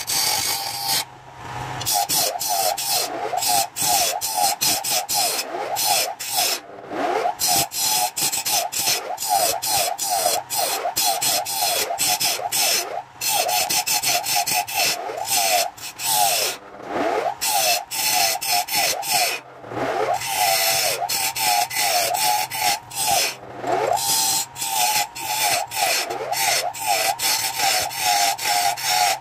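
Hand-held turning tool cutting into a wooden vase blank spinning on a lathe: a scraping, shaving sound in many short passes with brief breaks, with a wavering whine riding along with the cuts.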